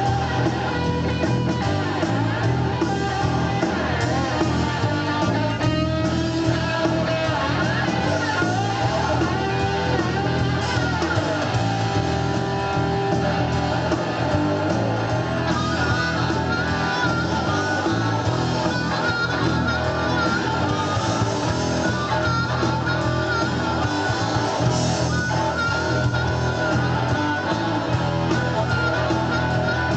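Blues-rock band playing an instrumental passage, with guitar to the fore.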